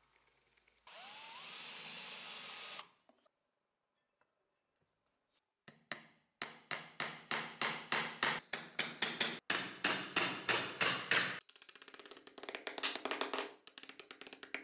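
A power drill runs for about two seconds, its pitch rising as it spins up. Then a hammer drives nails through a horseshoe into a wooden board in a long run of sharp strikes, each ringing briefly, about three or four a second, turning to quicker, lighter taps near the end.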